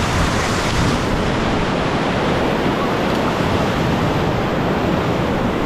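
Whitewater river current rushing steadily and loudly, an even wash of water noise with no break.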